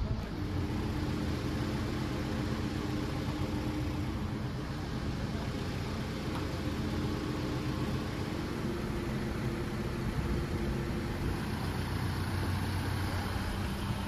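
A vehicle engine running steadily under outdoor street noise, with a low, even hum.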